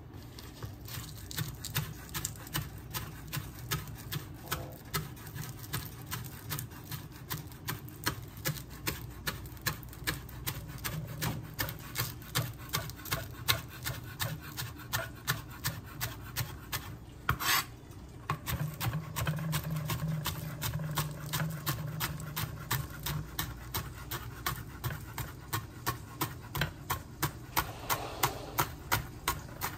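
Chef's knife chopping green onions on a plastic cutting board: a steady rhythm of quick knocks as the blade strikes the board.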